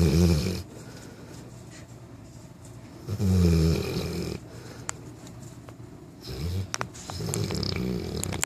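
A nine-month-old Newfoundland puppy snoring in its sleep: three low snores about three seconds apart, the last one longer.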